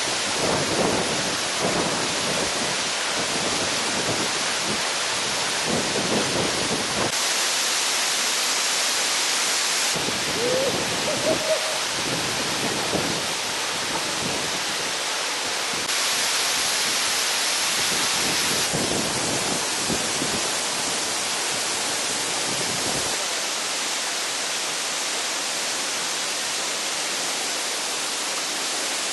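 Steady loud rushing hiss that jumps abruptly in level several times.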